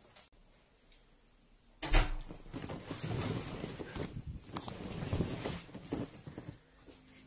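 A sudden heavy thump about two seconds in, then several seconds of rustling, shuffling and knocking as a person climbs off a sofa and moves about. A low steady musical tone comes in near the end.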